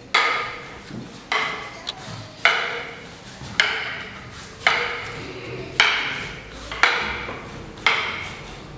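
Fighting sticks striking each other in a slow, steady drill: a sharp clack about once a second, eight in all, each ringing briefly.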